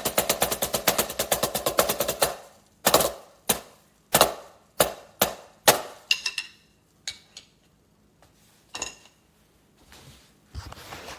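Drumsticks striking a Donner DTB-1S silicone practice drum pad: a fast roll of strokes for about two seconds, then single strokes about half a second apart that trail off into lighter taps.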